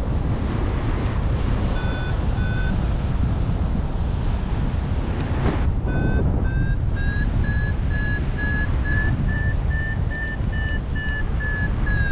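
Wind buffeting the microphone of a paraglider in flight, with a variometer beeping over it: two short beeps about two seconds in, then from about six seconds a steady run of about three beeps a second whose pitch slowly creeps up, the vario's signal that the glider is climbing.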